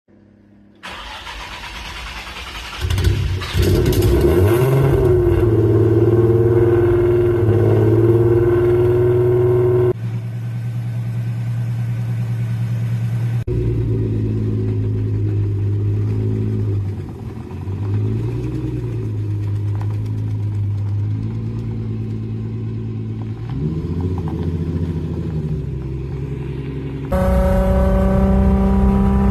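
Modified Nissan car engine, loud, revving up and down about three seconds in, then idling and blipping. The sound changes abruptly several times and ends with a steady rise in pitch as it accelerates.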